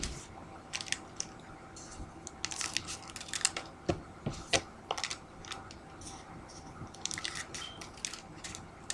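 Scissors snipping open trading-card packs and the pack wrappers crinkling as they are handled, in irregular short crackles and clicks.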